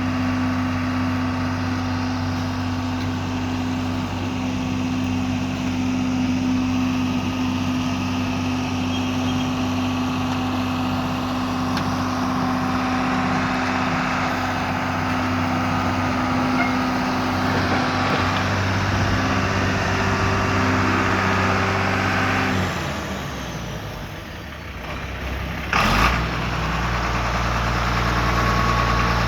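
John Deere 690B excavator's diesel engine running steadily. About two-thirds of the way through it winds down and goes quieter, a sharp clunk follows, and it then settles into a low, steady idle.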